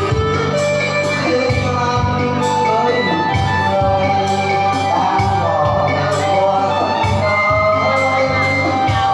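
Music with a steady beat and bass line, a voice singing the melody.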